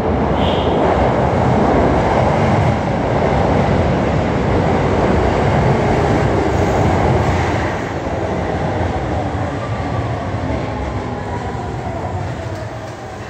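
Subway train running in the underground station: a loud rumble with rail and wheel noise that holds for several seconds and then slowly fades away.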